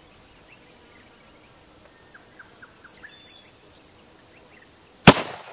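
Quiet open-air background with faint bird chirps, then a single rifle shot about five seconds in: a sharp, very loud crack with a short fading tail.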